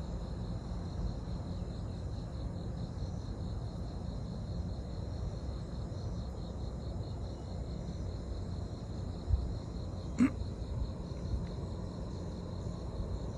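Insects trilling in a steady pulsing band over a steady low hum. There is a soft thump about nine seconds in and a sharp click about ten seconds in.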